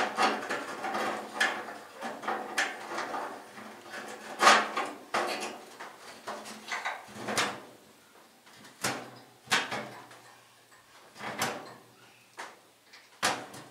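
Irregular knocks, clanks and scrapes from the sheet steel of a Model A Ford cab and firewall being handled and worked by hand. A dense clatter at first, then single knocks every second or two.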